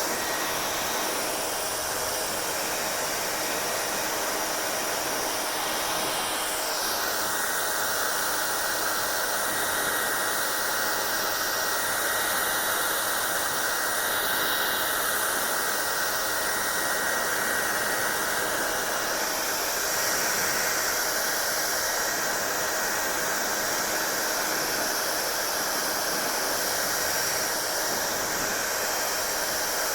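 Hair dryer blowing steadily, a continuous rushing hiss whose tone shifts a couple of times as the airflow changes.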